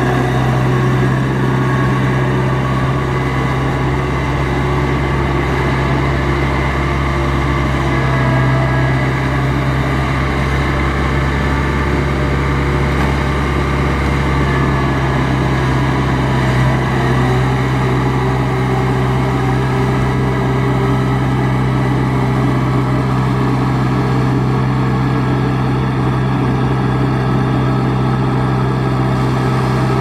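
Kubota DC70 Plus combine harvester's diesel engine running steadily, a constant low drone.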